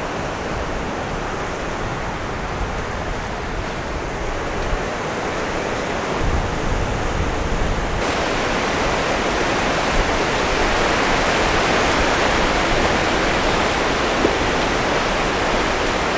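Ocean surf breaking and washing up a sandy beach, a steady rushing noise that grows a little louder and brighter about eight seconds in.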